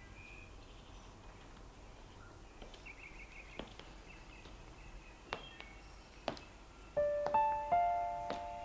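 Quiet background with a few faint sharp clicks, then soft piano notes come in about seven seconds in as the film's score begins.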